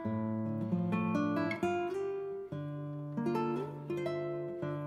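Background music: a plucked acoustic guitar playing notes and chords that change every second or so.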